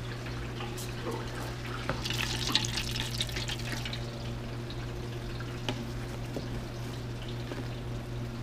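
Hot frying oil sizzling and crackling around freshly deep-fried chicken, heaviest about two to four seconds in, over a steady low electrical hum.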